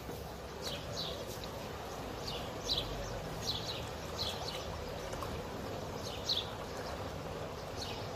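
A small bird giving short, falling chirps about once a second, over a steady hiss of moving water at a swimming pool.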